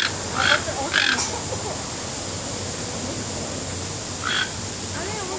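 Toucan giving short croaking calls, three in quick succession at the start and one more after about four seconds.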